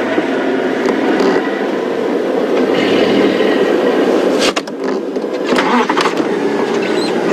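Open safari game-drive vehicle driving over rough bush track: engine running steadily under a constant rumble, with a brief cluster of knocks and rattles a little past halfway.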